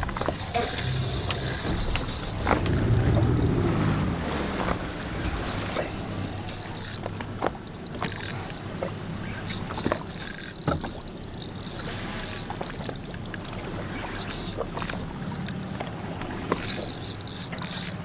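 Boat engine running low under wind and water noise; the engine rumble fades after about four or five seconds, leaving the hiss of wind and sea with a few small clicks.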